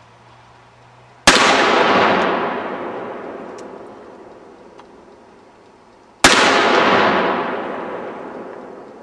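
Two handgun shots about five seconds apart, each very loud and sharp, then fading slowly over about three seconds as the report rolls away.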